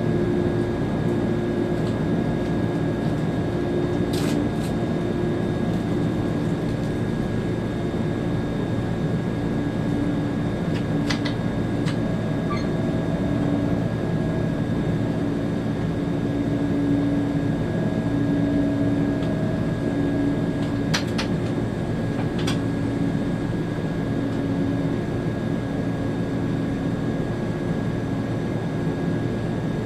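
ÖBB Railjet train running at speed, heard from the driver's cab: a steady rumble with humming tones that shift in pitch, and a few short clicks.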